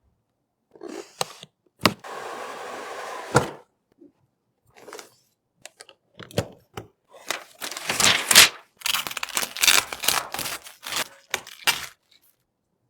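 Hands working with PC parts: a few sharp clicks, then a steady tearing or peeling noise for about a second and a half that ends in a knock, and from about seven seconds a dense run of clicks, clacks and rustling.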